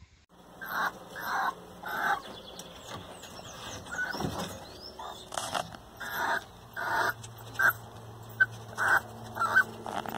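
Chickens clucking in a string of short calls, with small birds chirping faintly at times.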